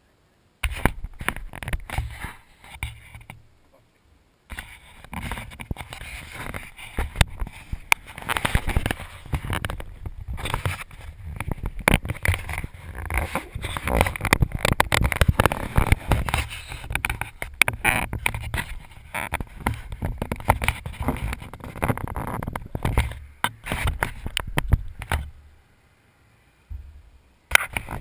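Handling noise from a GoPro Hero 3+ being adjusted by hand: fingers rubbing, tapping and clicking on the camera and its mount, with an irregular low rumble. It pauses briefly about four seconds in and dies away near the end.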